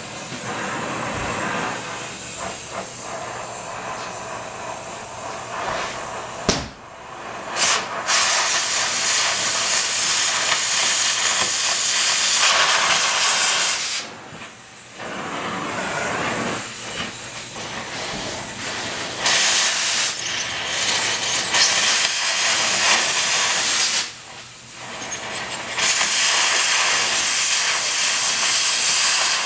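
Loud, even hissing that runs for several seconds at a time, stopping and starting again a few times.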